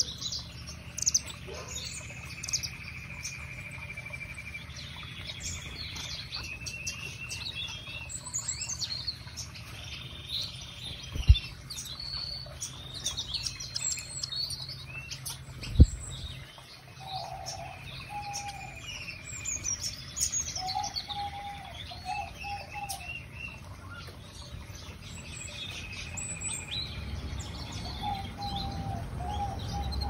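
A mixed flock of aviary canaries and finches chirping and calling, many short high tweets and trills overlapping, with a few lower repeated notes in the second half. Two brief low thumps stand out, one just past the middle and one a few seconds later.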